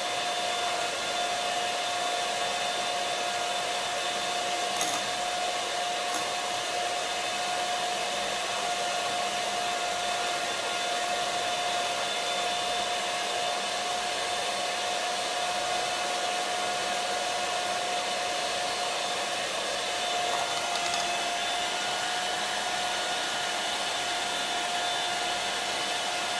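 Electric hand mixer running steadily, its beaters whipping instant cappuccino, sugar and hot water in a glass into dalgona foam that is starting to thicken. It makes a continuous motor whine with one steady high tone.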